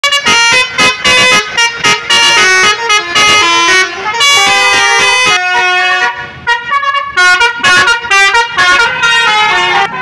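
Tour buses' basuri telolet multi-tone air horns playing fast melodic tunes, note after note at changing pitches, with a short break about six seconds in.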